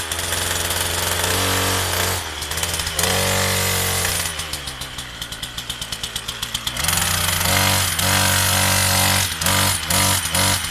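Partner 340S two-stroke chainsaw engine running at high revs, dropping to idle about four seconds in and revving back up about three seconds later, with short throttle blips near the end.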